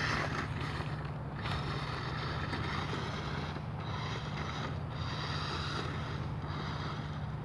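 New Bright 1:8 RC Jeep Wrangler's electric motor and gearbox whining as the truck drives over snow. The whine breaks off briefly several times as the throttle is let off and picked up again.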